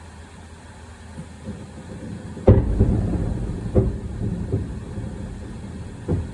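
Aerial fireworks shells bursting: one loud boom about two and a half seconds in, then three smaller bangs, each followed by a rumbling tail over a steady low rumble.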